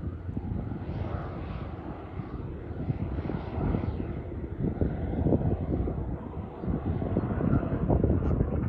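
The Walter turboprop engine and propeller of a Thunder Mustang climbing out after takeoff, heard from the ground as a distant drone that swells and dips unevenly.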